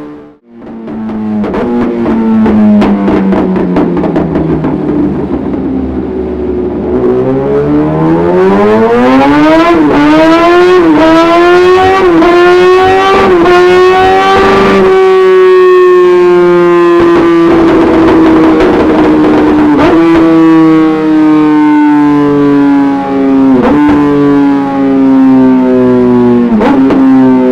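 Yamaha FZ1 Fazer inline-four through an aftermarket Dominator exhaust silencer, revved on a dyno run. The revs drop, then climb in a long pull with a few brief hitches to high rpm, then wind slowly and steadily down.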